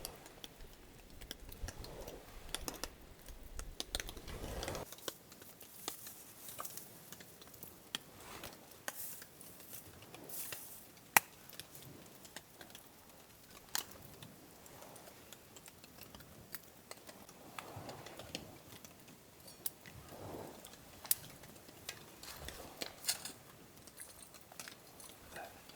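Camp cooking handling sounds: scattered sharp clicks and light knocks of utensils and cookware, the loudest a single sharp click about eleven seconds in. A low wind rumble on the microphone stops about five seconds in.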